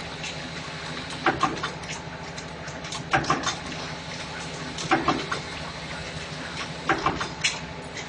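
Rectangular can-end clip handle welding machine cycling: a short cluster of metal clacks about every two seconds as each can end is loaded, clamped and welded, over a steady machine hum.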